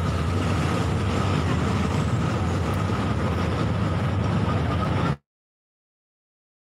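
Steady outdoor city background noise with a low rumble, with a faint thin whistle-like tone held above it. It cuts off abruptly to dead silence about five seconds in, as the live stream's audio drops out.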